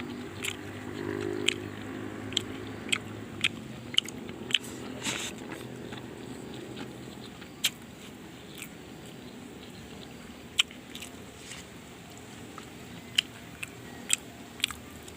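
Close-up eating sounds from chewing noodles and tempeh: sharp crunches and mouth clicks, one every second or so. They come thicker in the first few seconds and sparser later.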